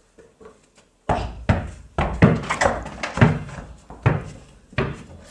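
A series of dull thuds and knocks, roughly one every half second to a second, starting about a second in.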